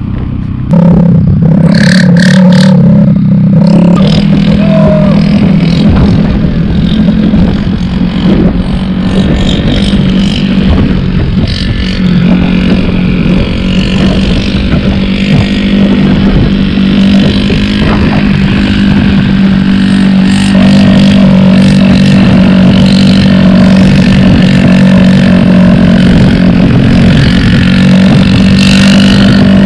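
Honda Dio scooter's single-cylinder engine running with its silencer (muffler) removed, its open exhaust giving a loud, steady drone as it is ridden along. The level jumps up about a second in and then holds.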